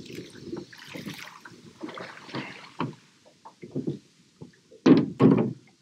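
A small rowing boat being handled on the water: irregular splashes and knocks from the oars and hull, with two louder bumps near the end.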